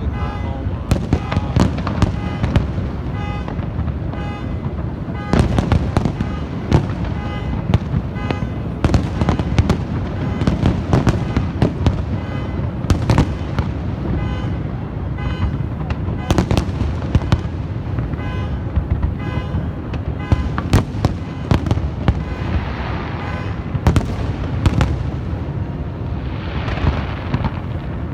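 Fireworks going off in rapid succession, sharp bangs one after another, with crackling bursts near the end. A faint pulsing tone runs underneath.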